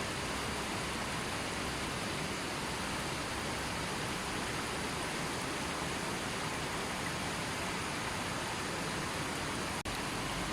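Gently flowing river: a steady, even rush of water, with a momentary dropout near the end.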